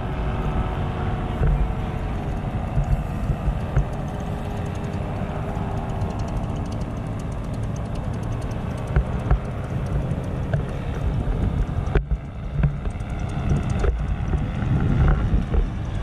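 Powered paraglider engines droning overhead, their pitch slowly wandering, with wind rumbling on the microphone.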